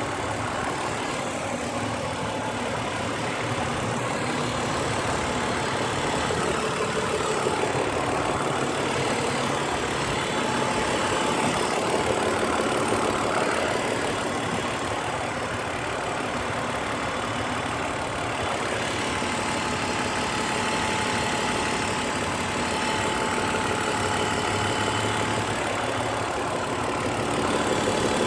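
BMW E46 engine idling steadily on freshly changed 0W-40 oil.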